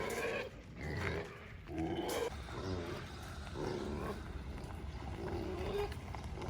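Goats bleating, several separate wavering calls one after another.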